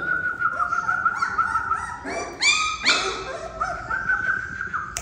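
German Shorthaired Pointer puppies whining and yipping, several high-pitched whines overlapping one another. A couple of louder, higher yelps come a little past halfway.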